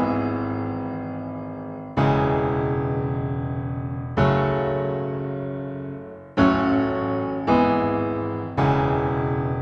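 Background music: slow keyboard chords, each struck and left to ring and fade. They come about every two seconds, then quicken to about one a second near the end.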